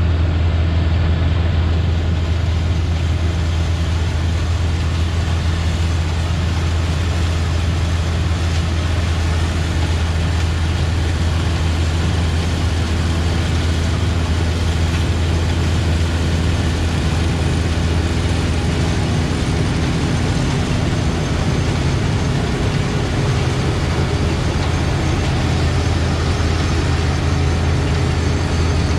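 Antique harvesting machinery running steadily in the field: a heavy engine's continuous low drone with mechanical noise over it.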